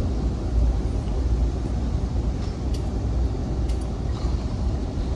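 Steady low rumble of an Amtrak passenger train heard from inside a Superliner coach, with a few faint clicks.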